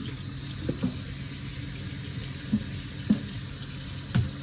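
Tap water running into a kitchen sink with a steady rush. About five light knocks come over it, from soap bottles being picked up and set back down on the counter beside the sink.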